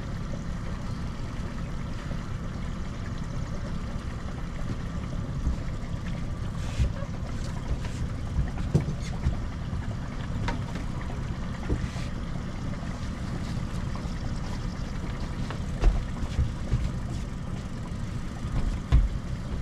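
Boat motor running steadily at trolling speed, with scattered short knocks and a few low thumps.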